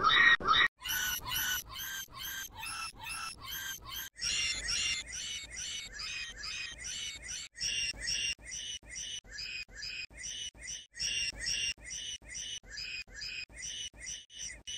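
A short, squawk-like pitched call repeated evenly about three times a second, electronically pitch-shifted so that the whole pattern jumps to a new pitch every three to four seconds.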